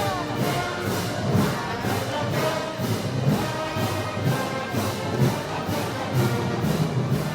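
Festival brass band music, brass instruments over a steady percussion beat.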